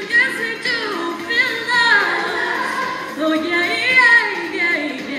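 Middle school choir singing, with a bright female voice wavering in vibrato above the group.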